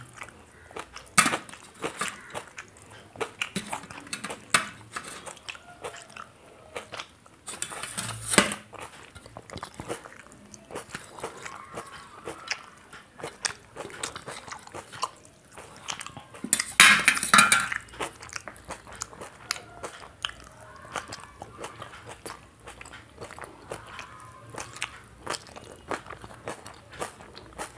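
A person chewing and biting food close to the microphone, eating with his fingers from steel plates, with many small clicks and clatters of food and hands on the steel. Two louder noises stand out, about eight and seventeen seconds in.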